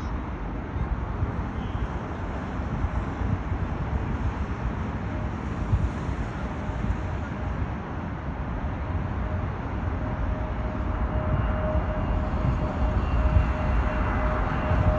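Airbus A320neo jet airliner approaching to land, its engine noise slowly growing louder, with a steady whine coming in after the first few seconds.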